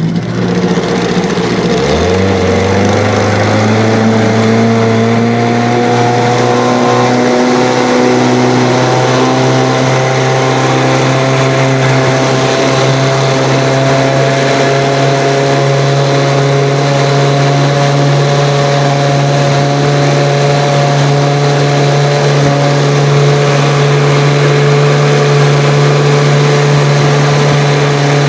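1970 Johnson 9.5 hp two-stroke twin outboard motor running under way. It speeds up over the first few seconds, then holds a steady pitch, over the rush of water and spray.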